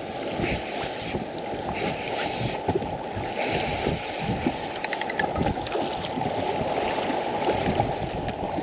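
Wind buffeting the microphone over choppy lake water lapping against a boat hull, a steady rushing noise with irregular gusts.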